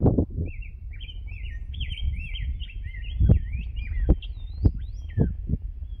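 Songbirds singing: quick overlapping chirps and warbling phrases. Underneath is a low wind rumble on the microphone, with several sharp thumps.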